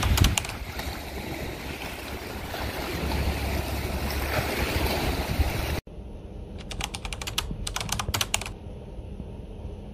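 Waves washing over a rocky shoreline with a low rumble, cut off suddenly about six seconds in. Then a ferry's steady low engine hum, under a quick run of keyboard-typing clicks lasting about two seconds: a typewriter sound effect for a title being typed on screen.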